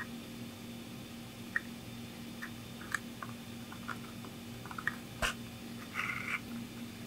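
A leather axe sheath being hand-stitched: small creaks and clicks as the leather is handled, a sharper click a little past five seconds in, and a short rasp of thread drawn through a stitching hole about six seconds in, over a faint steady hum.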